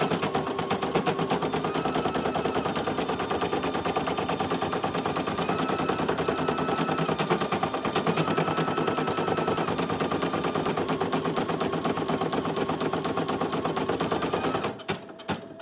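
Brother PE800 single-needle embroidery machine stitching at speed: a fast, even rattle of needle strokes with a faint whine that steps up and down in pitch. It stops abruptly about a second before the end.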